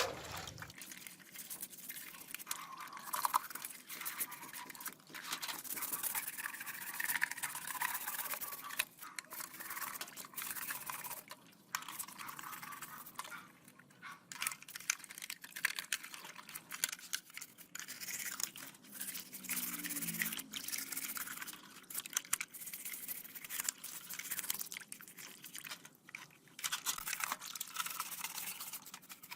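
Rusty metal of a small die-cast model car being scrubbed by hand with an abrasive, in quick, irregular rasping strokes with short pauses.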